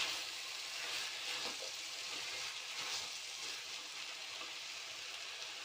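Chopped ivy gourd sizzling steadily as it fries in oil in a pan, with a few faint scrapes.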